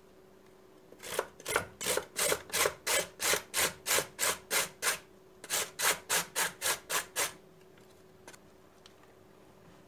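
A carrot being grated on a stainless steel box grater: rasping strokes, about three a second, in two runs with a short pause about five seconds in.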